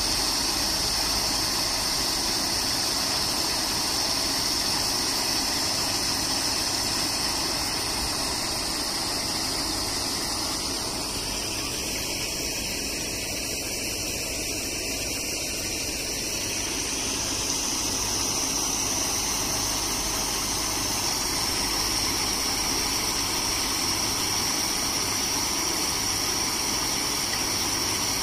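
Four-paddle wheel aerators, driven by 1 HP single-phase electric motors, churning pond water: a steady rushing splash with a mechanical hum beneath it. It dips slightly midway, then comes back up.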